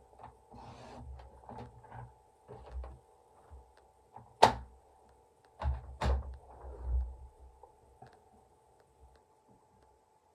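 Paper trimmer and cardstock being handled while a red cardstock strip is cut: light scraping and tapping, a sharp click about four and a half seconds in, then another click and a few dull thuds around six seconds as the trimmer is moved off the table.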